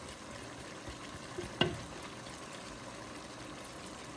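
Sage sausage and chopped fennel sautéing in butter in a pot, a steady soft sizzle, with one light knock about a second and a half in.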